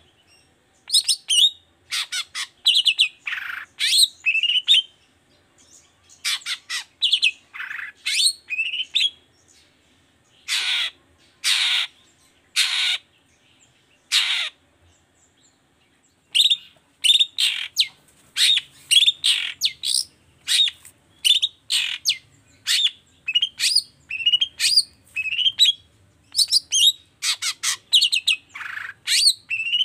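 Long-tailed shrike (cendet) singing in rapid runs of sharp, high chirps and whistles. Near the middle of the run it gives four longer, harsher notes about a second apart, then goes back to quick chirping.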